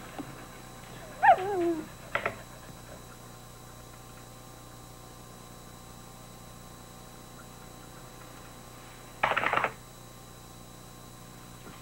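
A dog whines once, its pitch wavering and falling, about a second in, followed by a short click. Near the end comes a short, harsh noise. A steady faint hum runs underneath.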